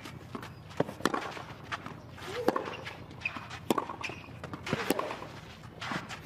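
Tennis rally on clay: racket strokes on the ball about every second and a quarter, with short grunts from the players on some shots.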